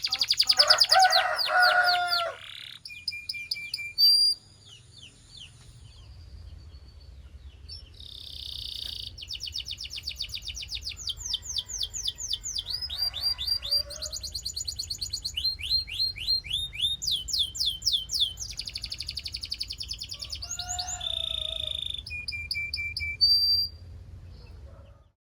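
Domestic canary singing: long runs of fast trills, each a rapid series of repeated high notes, mixed with a few lower warbled notes. There is a short pause about four seconds in, and the song stops just before the end.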